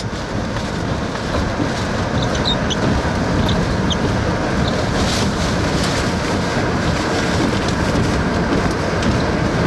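Steady rush of wind and rain against a car during a tornado, heard from inside the cabin, with a few faint ticks in the first few seconds.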